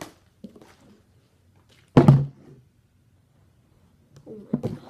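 A plastic water bottle thunks down hard once about two seconds in, then lands with a few lighter knocks near the end: a bottle being flipped and landing.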